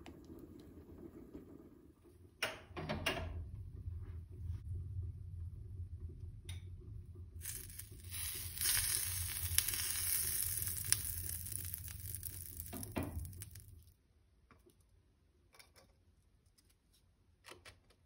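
A kitchen appliance motor switches on with a steady low hum, runs for about eleven seconds with a loud hiss joining it halfway through, then cuts off suddenly.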